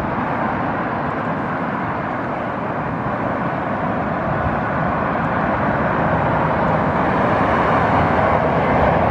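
Airbus A380 on final approach, its four Rolls-Royce Trent 900 engines making a steady jet rumble that grows slowly louder as the aircraft comes closer.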